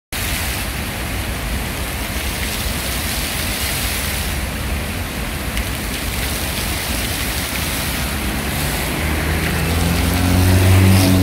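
Steady hiss and splash of fountain water jets falling into a basin. Near the end a car passes close by, its engine hum rising in level.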